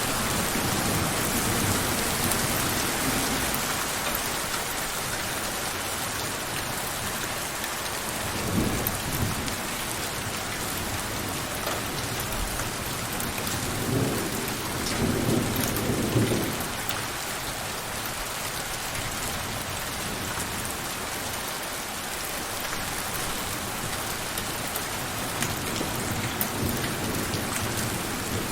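Steady heavy rain falling, with distant thunder rumbling low about a third of the way in and again, longer, around the middle.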